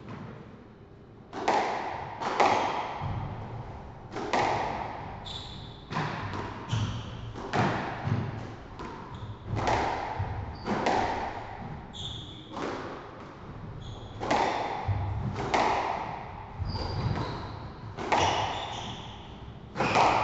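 Squash rally: the ball smacks off rackets and the walls about once a second, each hit ringing in the enclosed court. Short high squeaks come between the hits.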